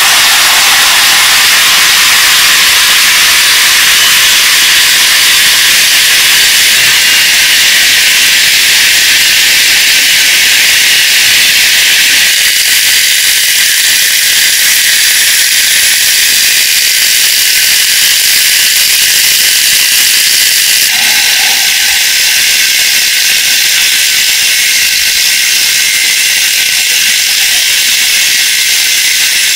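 Angle grinder running with an abrasive disc while a steel coil spring is held against it to clean it. It makes a loud, steady hiss that starts suddenly.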